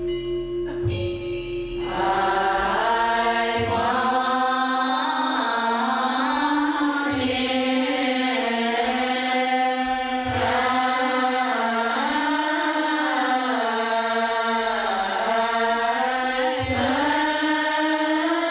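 A large assembly of Buddhist nuns chanting sutras in unison during morning service, a slow melodic chant that swells in about two seconds in. A few sharp strikes punctuate it.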